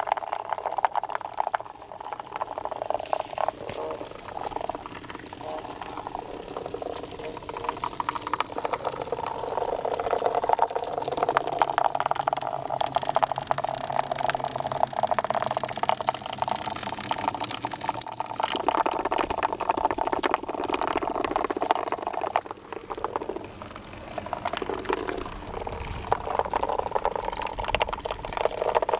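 Several Hexbug robot bugs buzzing and rattling as they scuttle across the plastic floor of a storage tub and bump into wooden blocks, a dense fast clicking that swells and fades.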